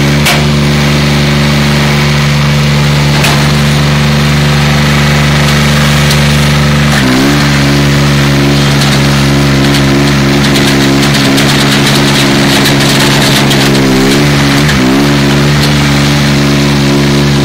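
Compact construction machine's engine running steadily close by, its pitch dipping briefly twice, about seven and fifteen seconds in.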